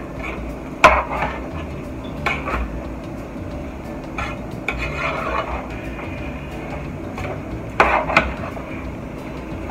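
A spoon knocking and scraping against a saucepan as rice is stirred while it fries with vegetables. There is a sharp knock about a second in, another near two seconds, a longer scrape in the middle, and two knocks close together near the end.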